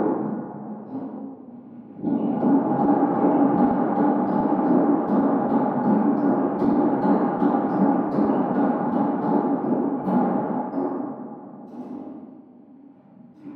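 Large suspended metal thunder sheet, shaken by a motor-driven crank and rod, rumbling and ringing like a gong. An earlier swell dies away over the first two seconds, a new one starts suddenly about two seconds in and holds, and it fades out over the last few seconds.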